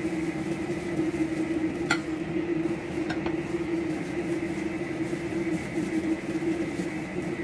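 Chicken wings being dredged in a cornstarch and flour coating in a bowl, with a couple of light clinks against the bowl, over a steady low hum.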